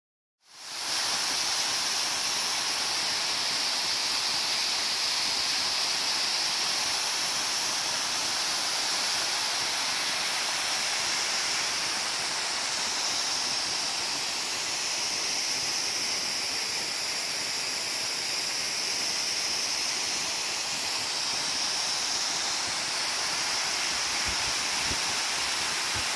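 Waterfall: a steady rush of falling water, hissing and strongest in the high range, fading in over the first half second. A few soft low bumps come near the end.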